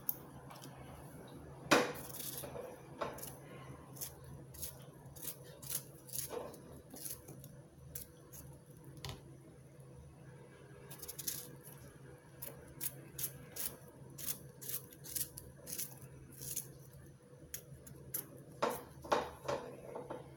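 Kitchen knife cutting firm fruit into pieces: a run of short, crisp cuts and taps on a wooden chopping board, at times about two a second. The sharpest knock comes about two seconds in, and there is a cluster of louder ones near the end. A faint steady hum lies underneath.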